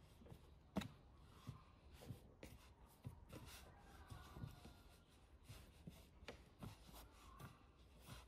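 Hands kneading soft dough on a wooden board: faint, irregular pats and presses, with one sharper knock about a second in.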